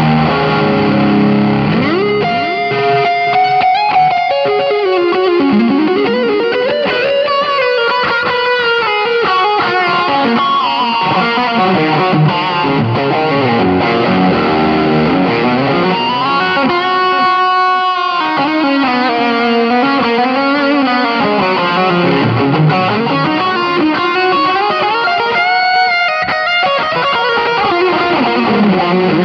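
Electric guitar played through an M-VAVE TANK-G multi-effects preset: a lead melody in mor lam style with string bends, slides and vibrato and a quick run of notes partway through.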